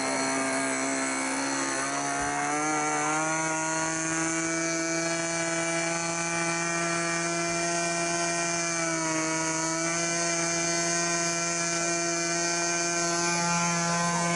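Twin-cylinder model-aircraft engine driving its propeller, revving up about two seconds in and then held steady at high revs, with a brief dip in speed partway through.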